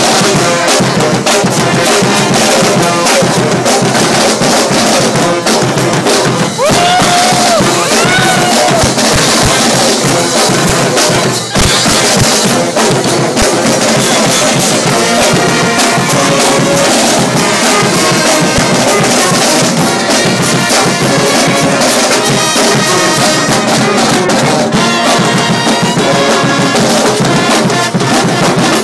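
Street brass band playing loud, with trumpets over a busy drum beat.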